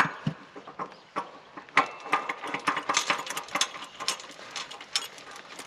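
Threaded steel plug being screwed by hand into a railcar valve flange: a rapid, irregular run of small metallic clicks and scrapes as it turns.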